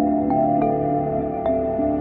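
Relaxing ambient background music: held chords with a few struck notes ringing over them.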